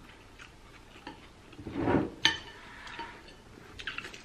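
Chopsticks and spoons tapping and clinking against ceramic noodle bowls, with a short louder slurp of noodles about two seconds in.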